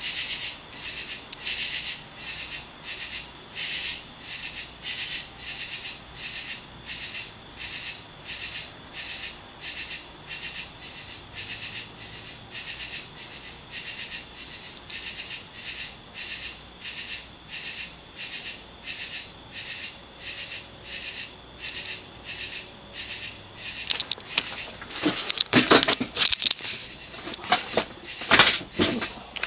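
HRS industrial ceiling fan with a cast-iron spinner motor and curved aluminum blades turning on low speed, its blades making an even whooshing pulse about twice a second. Over the last few seconds, loud irregular rustling noises come in over it.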